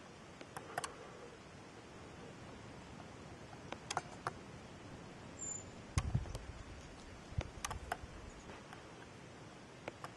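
Faint, uneven clicks and taps over quiet background hiss, with a louder low thump about six seconds in: handling noise from a handheld camera carried along a forest trail.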